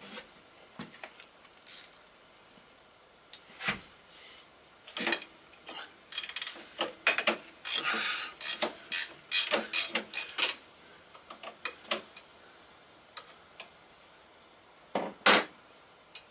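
Hand tools working on a motorcycle: a socket ratchet clicking in short strokes, in an irregular run of metallic clicks that grows busiest in the middle, with two sharper knocks near the end.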